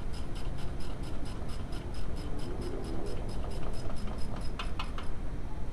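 Ratchet wrench clicking steadily, about five clicks a second, as a bolt at the front brake caliper is turned, with a few louder clicks just before it stops near the end.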